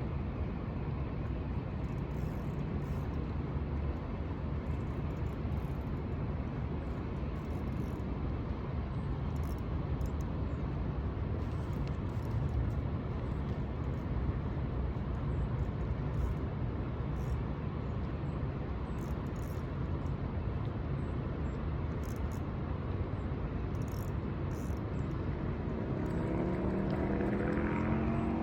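Steady low outdoor rumble, with an engine's hum rising in pitch near the end as a vehicle approaches.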